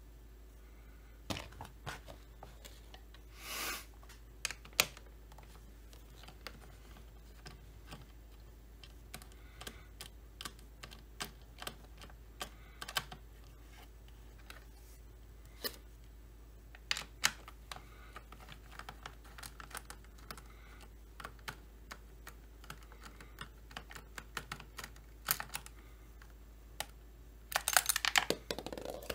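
Irregular small clicks and taps of hands and tools working on a chainsaw, with a short rustle a few seconds in and a quick flurry of clicks near the end.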